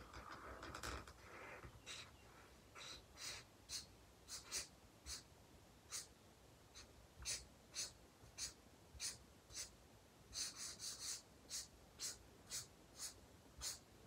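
Alcohol marker rubbing across paper in short, scratchy strokes, about two a second, with a quick flurry of strokes a little after ten seconds in. The noisy marker's tip is, in the artist's view, starting to dry out.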